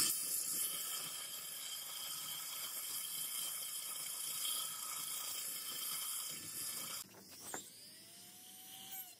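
Belt sander running with a workpiece held flat against the abrasive belt: a steady grinding hiss. About seven seconds in it cuts to a small rotary tool with a sanding drum whirring, its pitch rising briefly and then holding.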